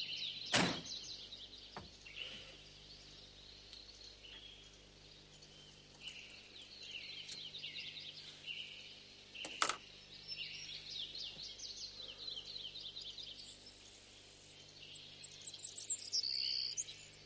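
Small birds chirping and singing, many quick falling chirps, with two sharp clicks, one about half a second in and one a little before ten seconds, over a faint steady low hum.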